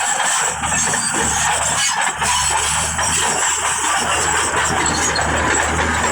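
Bulldozer working, its diesel engine and tracks making a loud, steady noise with a low hum underneath.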